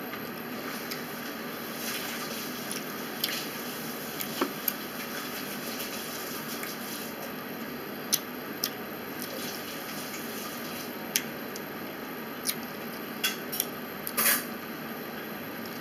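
Person eating grapes close to the microphone: scattered wet mouth clicks and smacks over a steady hiss, with a louder short cluster near the end.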